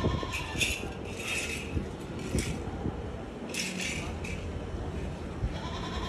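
Livestock in a cattle pen bleating in several short calls, with a few dull low knocks underneath.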